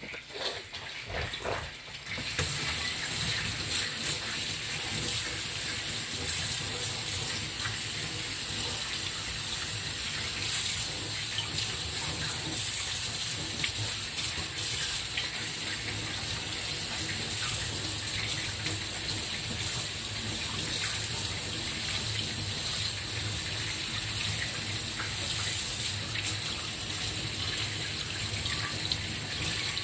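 Kitchen tap running steadily into a stainless steel sink as hands are washed under the stream. A few light knocks come first, and the water starts about two seconds in.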